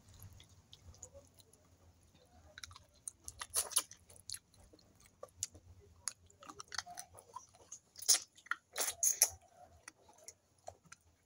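A person chewing food close to the microphone, with irregular mouth clicks; the sharpest come about eight and nine seconds in.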